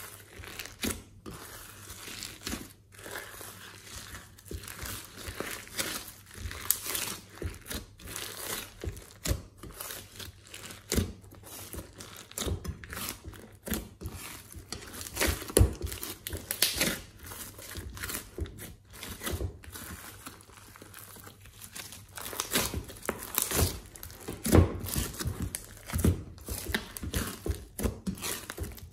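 Hands kneading, folding and pressing a large lump of thick white slime mixed with small colourful bits, giving an irregular run of sticky crackles, pops and squelches as air pockets burst.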